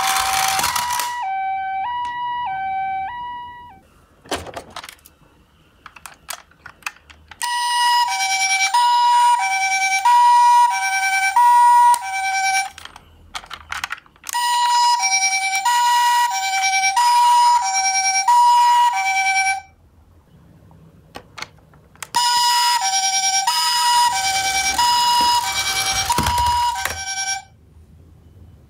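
Toy ambulance's electronic two-tone siren, the Japanese-style high-low 'pee-po' ambulance call, changing tone about every half second. It sounds in four bursts: a softer one at the start, then three louder ones a few seconds apart. Small clicks and knocks come in the pauses.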